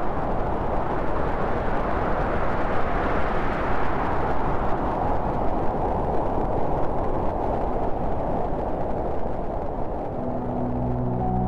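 Steady rushing noise that swells through the middle and fades near the end, as soft music comes in.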